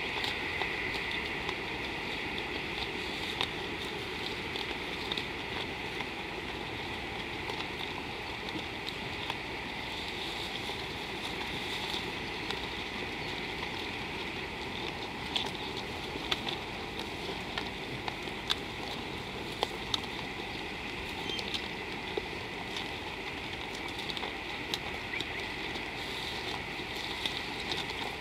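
Steady outdoor bush ambience: an even hiss with a steady higher-pitched band over it, and scattered light ticks at irregular intervals.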